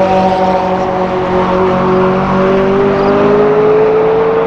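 Performance car engine running hard at high revs, its pitch climbing slowly and steadily as the car accelerates on the circuit.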